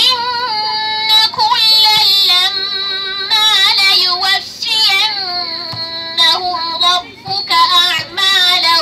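A girl's voice reciting the Quran in melodic tajweed chant, drawing out long held notes with ornamented turns and pausing briefly for breath between phrases.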